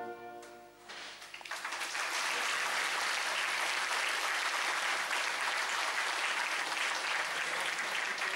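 The last held chord of the French horn and wind band dies away, and from about a second in an audience applauds steadily.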